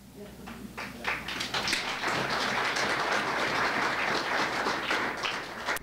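Audience applauding: a few scattered claps build within the first two seconds into steady applause, which dies away near the end.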